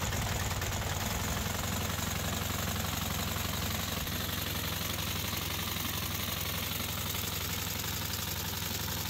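The ProGARDEN Campo U14e mini tractor's 14 hp petrol engine running steadily at a constant speed, with a fast even mechanical rattle over a low hum.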